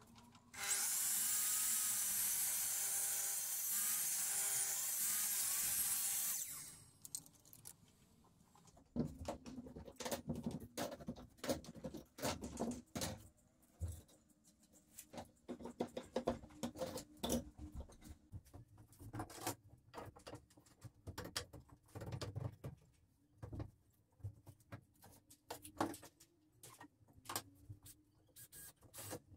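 Sliding compound miter saw running and cutting through a glued-up wood block for about six seconds, then stopping. After it come irregular knocks and clatter of wood, clamps and tools being handled.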